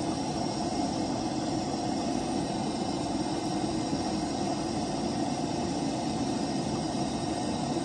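Gas burner turned up as high as it will go, running with a steady, even rushing noise under a pot of boiling sugar syrup.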